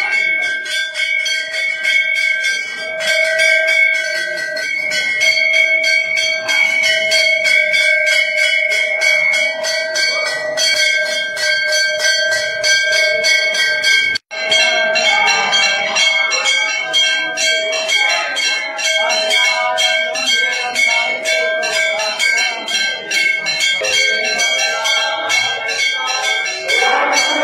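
Several large brass temple bells rung by hand together, their clappers striking over and over in rapid, overlapping strokes that merge into a continuous clanging ring. The ringing breaks off for a split second about halfway through.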